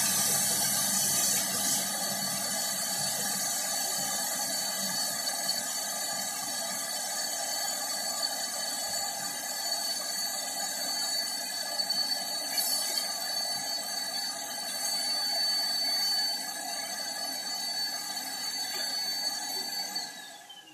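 Vacuum cleaner running with a steady high whine. It is switched off near the end and its motor winds down.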